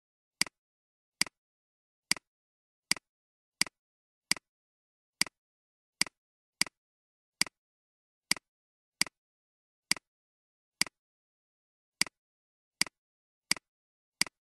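Computer mouse button clicking, about eighteen single sharp clicks at a steady pace of a little more than one a second, each click paging the document viewer forward one page.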